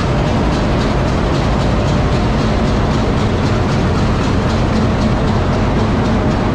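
Diesel-electric locomotive engine idling: a steady heavy drone with a quick, even pulse.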